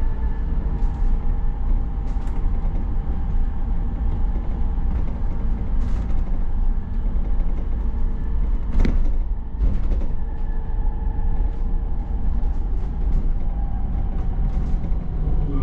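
Optare MetroDecker EV electric double-decker bus driving, heard from on board: a steady low rumble of road and tyre noise with a faint steady hum. Two sharp knocks come about nine and ten seconds in.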